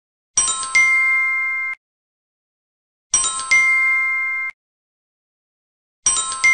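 A bright electronic 'correct answer' chime, played three times about three seconds apart. Each one is a quick rush of noise and then a chord of bell-like tones that holds for about a second and stops abruptly.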